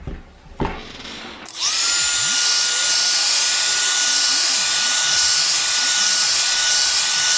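Electric heat gun switched on about a second and a half in: its fan motor whines up to one steady pitch under a loud, even rush of blown air. It is heating the iPad's glass to soften the screen adhesive before prying.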